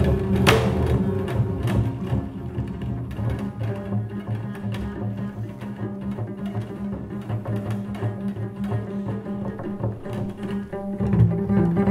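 Two acoustic double basses improvising together: a sharp struck attack just after the start, then held low notes with quieter scratchy activity above them, growing louder again near the end.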